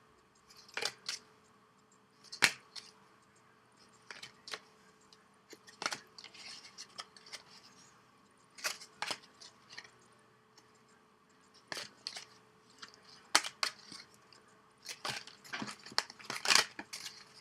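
Trading cards being flipped through by hand: irregular flicks, slaps and slides of glossy card stock against each other, with a denser run of them near the end.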